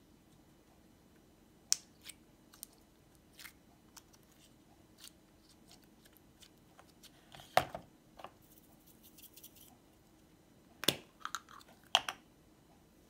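Clear slime being stretched and kneaded in a plastic tub: scattered soft squelches and sticky pops, with a few sharper clicks and knocks from the plastic containers, the loudest just past the middle and near the end.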